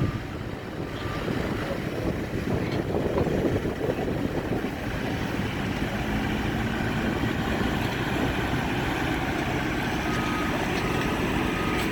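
Backhoe engine running steadily.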